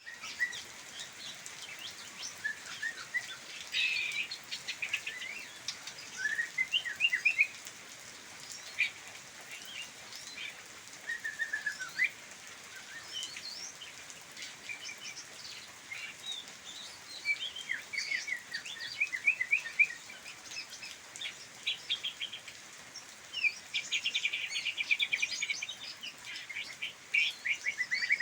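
Songbirds chirping and singing: short sliding notes and quick trills, one after another, with longer rapid trills about four seconds in and again near the end.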